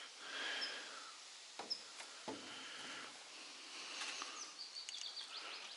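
Faint outdoor ambience with a few brief, high bird chirps. Two soft knocks come about one and a half and two seconds in.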